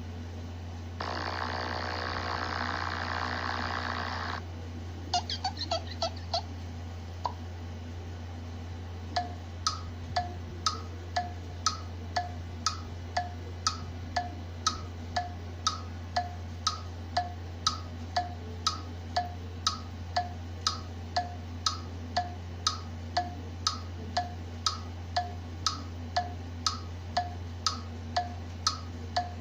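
A run of short sound effects over a low steady hum. First comes a buzzy tone of about three seconds, then a few quick chirps and a single click. Last comes a long, even series of short ticks with a brief tone in each, about two a second, like a ticking clock.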